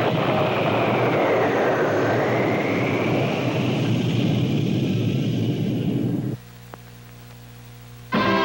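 Flying sound effect: a rushing, jet-plane-like whoosh with a whistling tone that dips and then rises again. It lasts about six seconds and cuts off suddenly, leaving a quieter hum with a single click, and music starts near the end.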